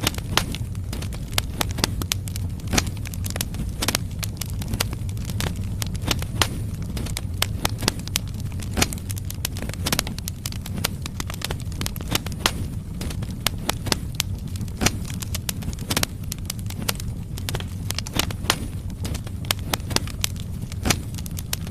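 Firewood logs burning in a fireplace, with a steady low rumble of the flames and frequent sharp crackles and pops.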